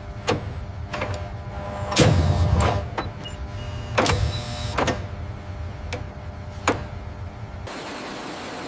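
Powered torque tool tightening aircraft fasteners: short motor whirs with sharp clicks and metallic knocks over a low machine hum, the loudest bursts about two and four seconds in. Near the end this gives way to a steady rushing noise.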